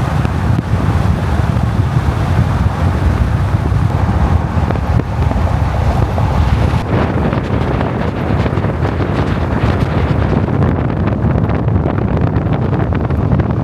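Wind buffeting the microphone, a steady low rumble, over the road noise of a moving truck towing a trailer.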